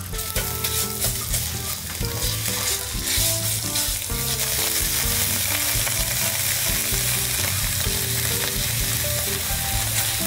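Khao soi curry paste sizzling as it fries in oil in a non-stick frying pan, stirred and scraped with a silicone spatula. Coconut milk is stirred in partway through, and the sizzle grows louder from about three seconds in.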